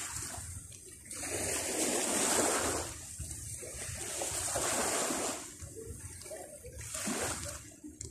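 Water splashing in several surges, each one to two seconds long, with short quieter gaps between them.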